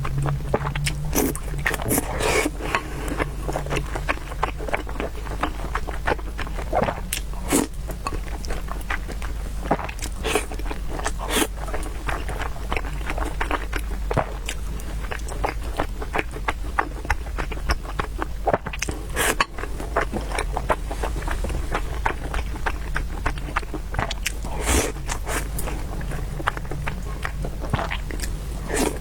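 Close-miked eating sounds: a person chewing and biting food, with many quick, irregular wet clicks throughout.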